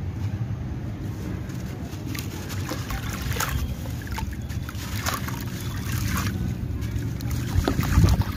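Sand-cement block crumbling in the hands, with sand and grit dropping into a basin of water in several short crackly spills. A steady low rumble runs underneath and is loudest near the end.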